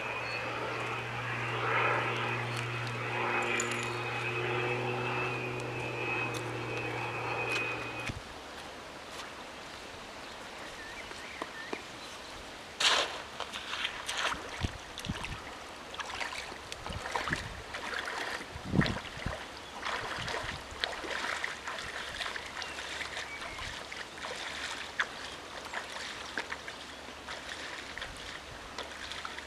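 A steady engine drone cuts off suddenly about eight seconds in. Then bare feet wade through shallow river water over gravel, with irregular splashes and pebble clicks.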